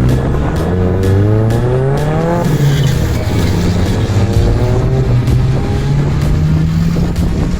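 A car engine accelerating hard. Its pitch climbs, drops about two and a half seconds in as it shifts up, then climbs again.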